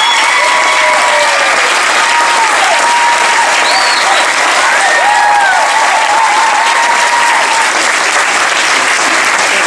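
Audience and cast applauding loudly and steadily, with a few voices whooping and cheering over the clapping.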